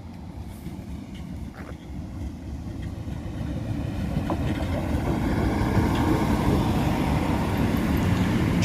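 Northern Ireland Railways diesel multiple unit approaching the platform, its rumble growing steadily louder.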